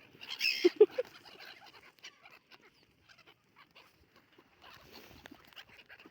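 Domestic fowl calling, with one loud call about half a second to a second in, followed by fainter scattered short calls and rustling.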